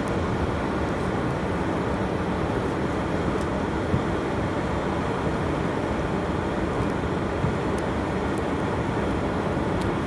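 Steady low rumble of a car's engine and tyres, heard from inside the cabin while driving on a snow-covered road.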